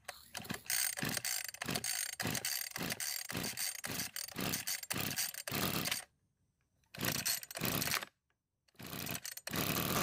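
Pull-start attempts on a Weed Eater hedge trimmer's two-stroke engine: quick mechanical ratcheting strokes, about three a second, then a few separate pulls, the last one longer and louder. The engine turns over without catching, which the owner puts down to a possibly flooded engine.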